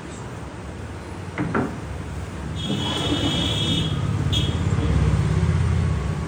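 Solid-wood sofa-cum-bed being worked: a wooden knock about a second and a half in, then a long low rumbling slide of a wooden storage drawer and frame, with a brief high squeak partway through.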